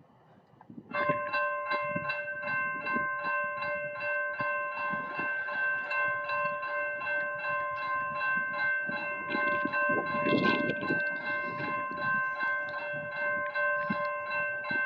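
Amtrak locomotive's multi-chime air horn held in one long, steady chord for about fourteen seconds, starting about a second in and cutting off sharply. The locomotive bell rings at about four strokes a second under it. A low rumble swells briefly about ten seconds in.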